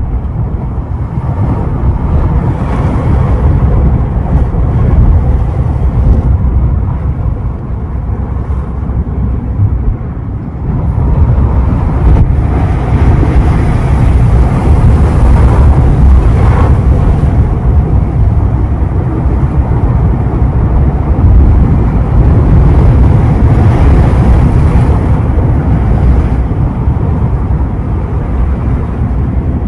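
Ocean surf rolling and breaking on the shore, a loud, continuous wash with heavy wind rumble on the microphone. It eases briefly about ten seconds in, then swells up again.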